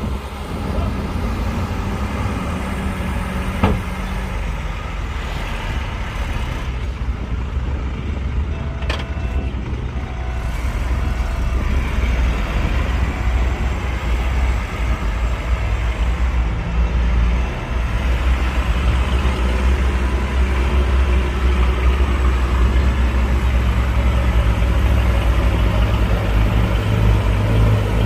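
Heavy diesel construction machinery running with a steady low rumble that grows louder about halfway through, with a single sharp knock about four seconds in.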